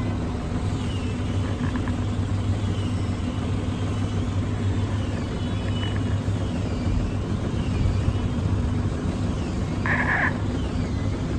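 Street traffic with a steady low engine hum from nearby vehicles, and a short higher-pitched sound about ten seconds in.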